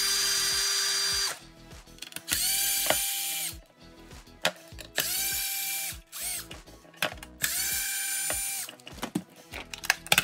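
Cordless power screwdriver with a hex bit backing screws out of a plastic R/C chassis part, in four short runs of about a second each. Each run whines quickly up to speed and then holds steady, with clicks and knocks of handling in between.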